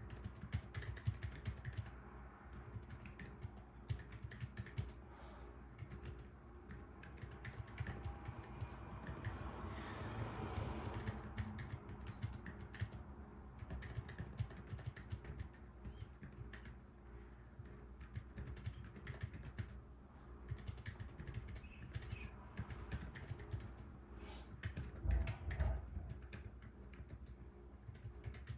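Fast, continuous typing on a Keyball44 split keyboard with Yushakobo Fairy Silent Linear switches, damped with Poron foam in the PCB, acrylic plate and case and with silencing O-rings: muted, dull key presses with little high click. A few heavier low thumps come near the end.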